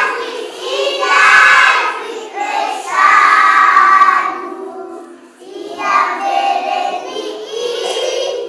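A class of young children singing together in short loud phrases, with a brief pause about halfway through.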